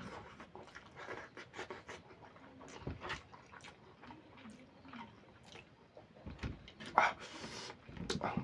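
Close-miked eating: wet chewing, lip smacks and mouth clicks while eating goat liver curry with rice, irregular throughout, with a louder smack about seven seconds in.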